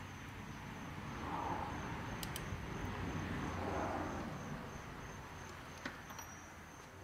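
Faint sound of a torque wrench and deep socket tightening a motorcycle steering-stem ring nut, with a quick pair of light clicks a little over two seconds in and another small click near the end.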